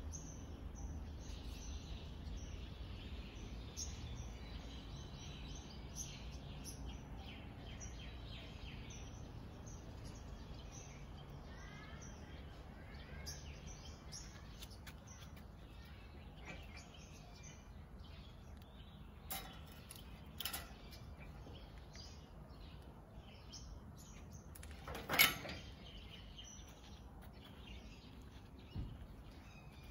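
Small birds chirping on and off over a steady low background rumble, with a few sharp clicks and one louder knock late on.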